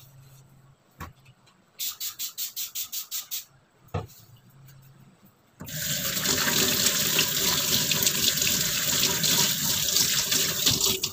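A kitchen tap is turned on a little past halfway and runs hard into the sink, a loud steady rush of water. Before it come a quick run of about nine even strokes and two single knocks.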